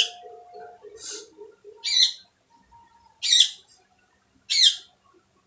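A bird calling in the background: five short, high chirps about a second apart, each sweeping down in pitch.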